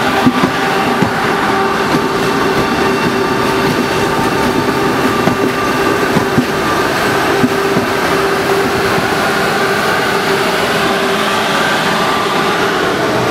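Allegro (Sm6) high-speed electric multiple unit passing close by: a steady, loud rush of wheels on rail with a steady hum running through it.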